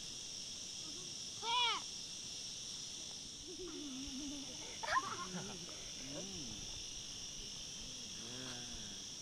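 A steady high-pitched chorus of insects, with children's short high calls and shouts over it. One loud shout comes about a second and a half in, and another sharp cry about five seconds in.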